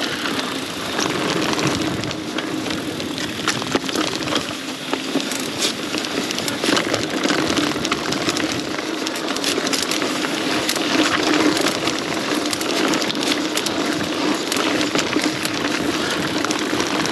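Mountain bike rolling along a dirt singletrack trail: tyres crunching over dirt, gravel and twigs, with a dense run of small clicks and crackles.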